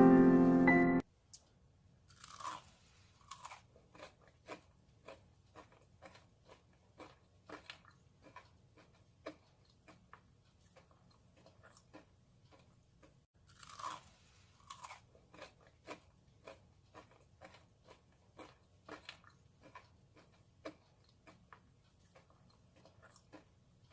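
Someone chewing crispy pan-fried sweet potato pancake (goguma-jeon): a run of short, crisp crunches at an irregular pace, with two louder bites, one a couple of seconds in and one about halfway.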